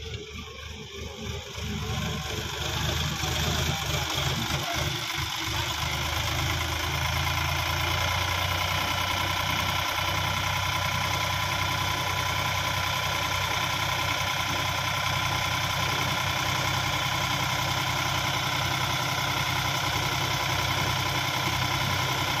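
Sonalika DI 35 tractor's diesel engine running steadily as its hydraulic lift tips the loaded trailer. It grows louder over the first few seconds and then holds an even note.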